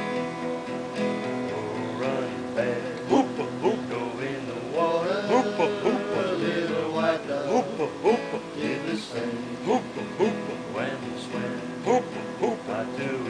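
Acoustic guitar being strummed, with a voice singing along.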